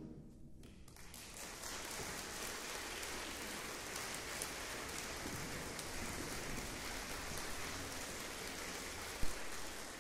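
Audience applauding in a concert hall after the final chord of a wind band piece dies away; the applause sets in about a second in and holds steady. A single low thump near the end.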